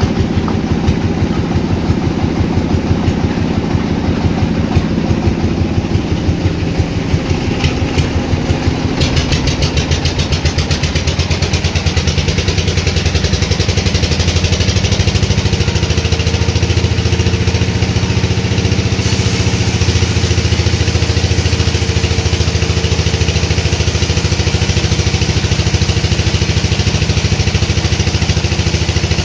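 An engine running steadily with a rapid even pulse. Its note shifts about nine seconds in and gets brighter from about nineteen seconds.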